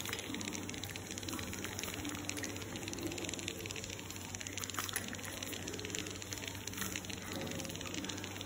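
Steady rushing noise with a low hum, with faint scattered ticks of a metal pick scraping old gland packing out of a cast-iron gate valve's stuffing box.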